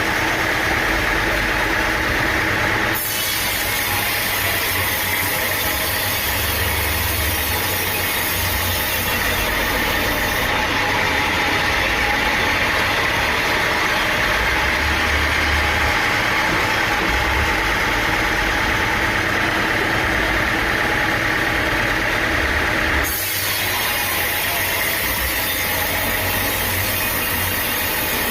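Sawmill machinery running steadily, an engine-like drone with a hiss over it. The sound changes abruptly twice, about 3 seconds in and near the end.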